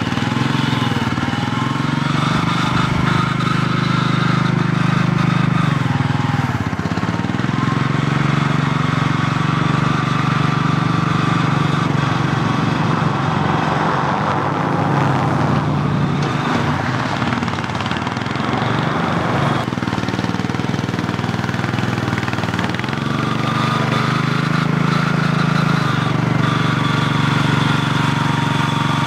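Small engine of a mini loader running, its note dropping and changing a few times as the machine works. A vehicle passes on the road about halfway through.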